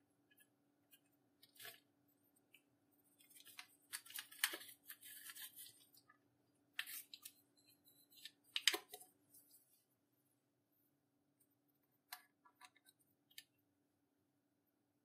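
Slime being squished and worked by hand, giving irregular bursts of small crackles and clicks. They are loudest about four to five seconds in and again near nine seconds, with a few faint clicks later on.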